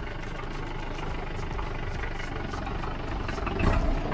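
Off-road SUV engine running at low revs, swelling briefly near the end, as a 4x4 crawls up a muddy, rocky track.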